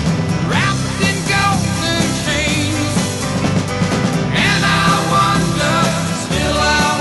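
Rock music soundtrack.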